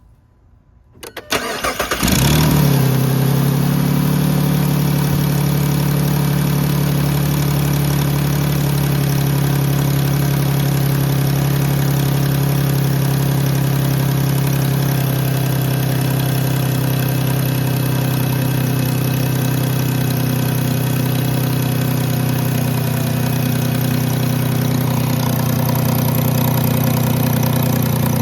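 2010 Jeep Grand Cherokee 3.7-litre V6 cranked by the starter and catching about two seconds in, then settling into a steady idle. It is idling with an odd noise that the owner traces to the intake on the driver's side and has ruled out as valves, the PCV valve, or an intake or exhaust leak.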